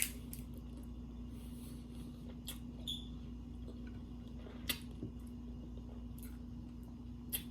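Scattered small clicks and crinkles of tacos and sauce being handled and dressed, over a steady low hum.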